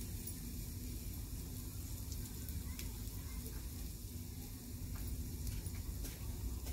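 Garlic frying in hot oil in a small ladle held over a fire for a tempering (chhaunk): a steady sizzle with a few faint crackles.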